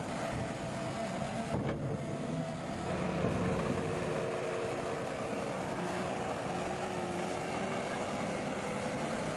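Heavy road-construction machinery running steadily: a continuous engine rumble with a faint, slightly wavering drone over it.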